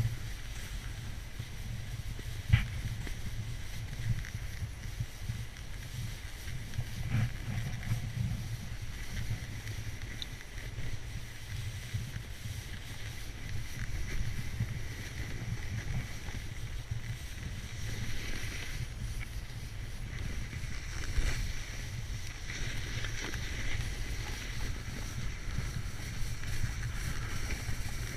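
Steady low rumble of a run down a wet-snow slope at about 20 km/h: sliding noise over the snow mixed with wind on the camera's microphone. Now and then a bump knocks, sharpest about two and a half seconds in.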